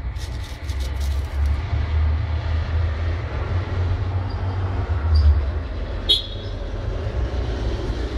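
Steady low rumble, with a few sharp clicks in the first second or so and one short sharp sound about six seconds in.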